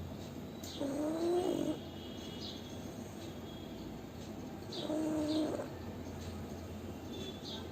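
Pug snoring in its sleep: two pitched, whiny snores about four seconds apart, each lasting about a second.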